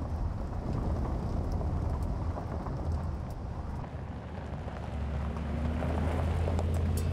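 Mercedes-AMG G63's twin-turbo V8 running on a dirt track, a low steady engine drone under a rough rumble of tyres on the loose surface. The engine note grows louder about five seconds in.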